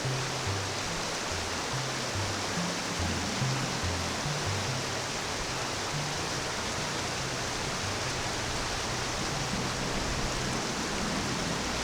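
Steady rush of fast-flowing mountain river water, with low bass notes of background music changing beneath it.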